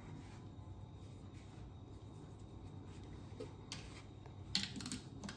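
Faint rubbing and crumbling of a hand working sorghum and rice flour with hot water in a ceramic plate, with a few sharper scrapes near the end.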